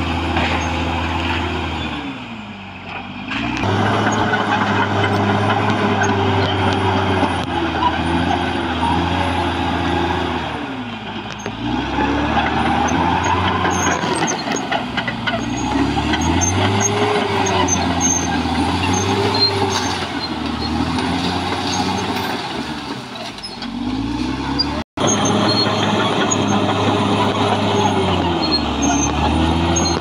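Caterpillar D6R XL bulldozer's diesel engine running hard as the machine pushes earth, its pitch and loudness sagging and climbing back up three times as the load and throttle change. The sound drops out for an instant near the end.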